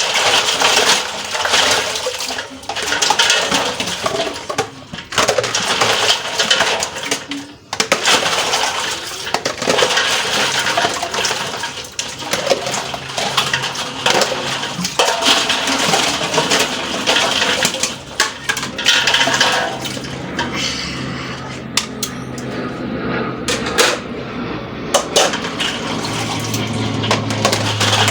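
Water running from a tap into a sink while dishes and pots clatter and clink against each other, as in washing up.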